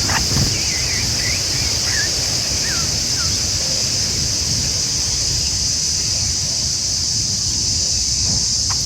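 A steady, high-pitched insect chorus of crickets or cicadas, with a low rumble of wind underneath and a few faint, short, falling bird chirps in the first few seconds.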